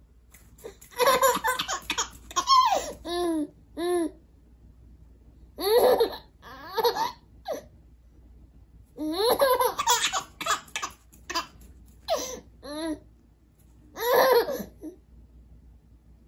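A nine-month-old baby girl laughing hard in several bursts of giggles, separated by short pauses.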